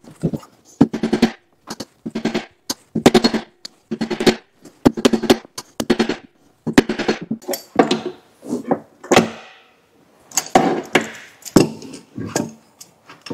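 Claw hammer striking steel alligator belt lacing, driving it into the end of a conveyor belt laid over a wooden board. Sharp metallic blows that ring briefly, coming in quick runs with short pauses and a longer pause of about a second a little after the middle.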